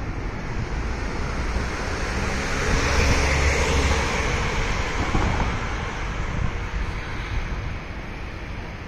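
Wind blowing over the microphone: a steady rushing with a heavier low rumbling gust about three to four seconds in.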